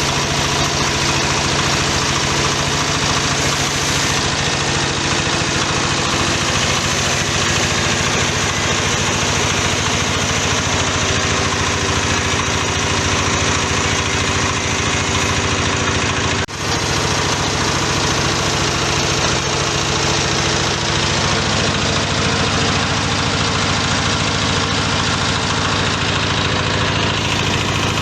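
Feed pellet-making machine running steadily, its motor and press giving a continuous mechanical drone. The sound drops out for an instant about halfway through, then carries on unchanged.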